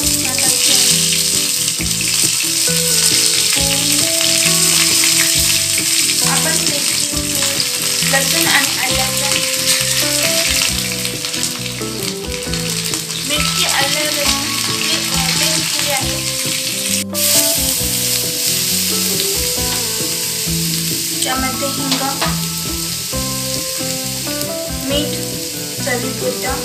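A tempering sizzling in hot oil in a nonstick pan. Curry leaves hit the oil and mustard seeds at the start, and a crushed green chili, garlic and ginger paste goes in about halfway through, stirred with a spoon. The sizzle is strongest at first and eases slowly.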